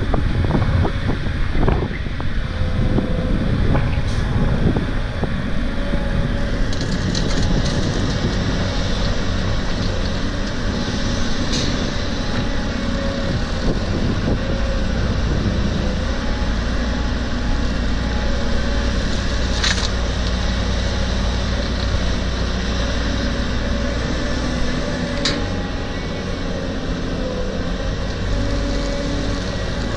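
Caterpillar 320D hydraulic excavator working under load: a steady diesel engine and hydraulic drone, with the bucket crunching and scraping through laterite gravel in the first few seconds and a few sharp ticks of stone later on.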